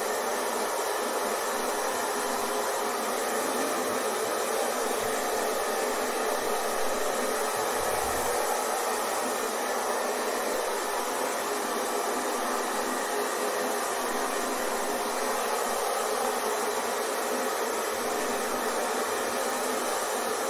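Hair dryer running steadily: a constant, even blowing hiss with no change in pitch or level.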